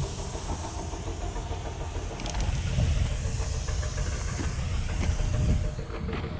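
Aerosol spray paint hissing steadily out of a can through a needle-tip skinny cap adapter, under a low rumble that grows louder in the middle.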